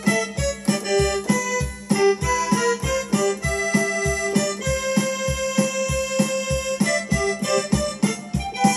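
Accordion-sound melody played in held, changing notes over an even low bass beat of about two thumps a second.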